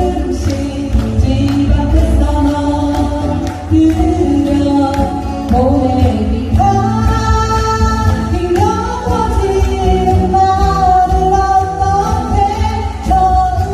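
Live acoustic performance of a Korean pop ballad: two acoustic guitars strummed under a woman's sung melody.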